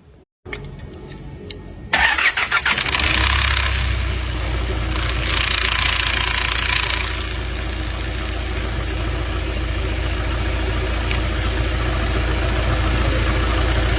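Vehicle engine starting about two seconds in, running loudly and noisily for several seconds, then settling into a steady idle. The noise is what the uploader calls a bad chain adjustment.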